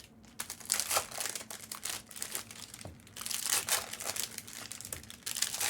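Trading-card pack wrappers crinkling as they are handled and opened, in short irregular rustles.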